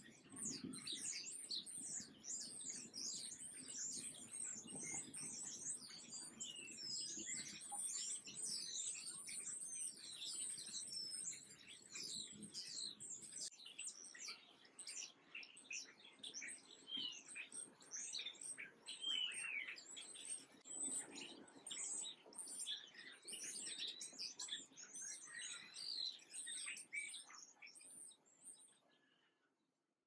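A flock of small songbirds chirping continuously, many quick high downward-sliding chirps overlapping one another, fading out near the end.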